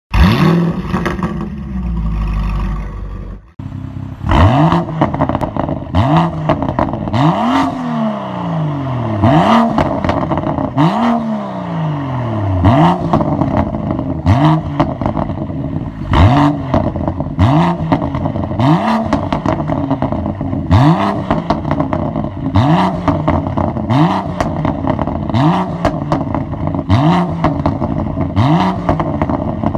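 BMW M2 (F87) turbocharged straight-six breathing through an MG Motorsport aftermarket exhaust, revved repeatedly at standstill. A short steady run cuts off abruptly about three and a half seconds in. Then come a few long revs that climb and fall away, followed by quick throttle blips about every second and a half, with pops and crackles as the revs drop.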